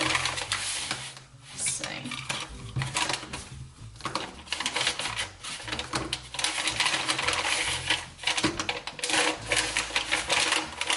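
Brown paper packaging rustling and crinkling while thin wooden clothes rack pieces are pulled out and set down, with light wooden clicks and clatter throughout.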